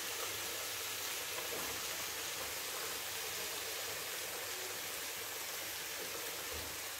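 Chicken pieces and tomato masala sizzling steadily in a tawa, a flat griddle pan.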